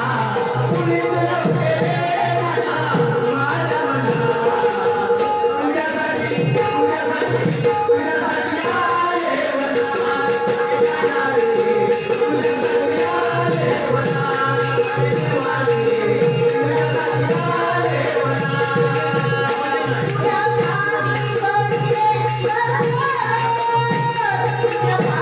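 Marathi devotional gavlan sung by a bhajan group, voices over a steady held drone with a brisk, even jingling percussion beat.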